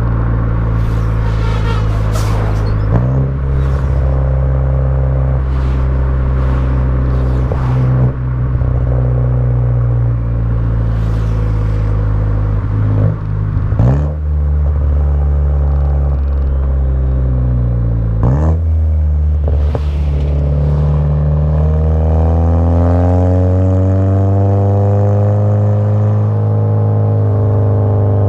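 Exhaust of a VW Jetta GLI Mk6's turbocharged 2.0-litre four-cylinder, fitted with a downpipe and cat-back exhaust, running through DSG gear changes. Its note steps in pitch several times with short sharp pops, then rises steadily near the end as the car accelerates.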